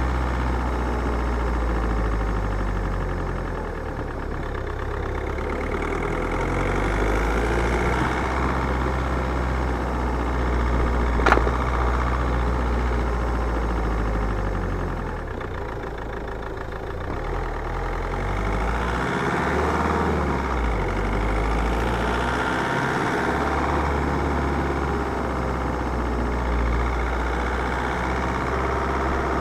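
Car running and driving, a steady engine and road noise that swells and eases a few times, with a single sharp knock about eleven seconds in.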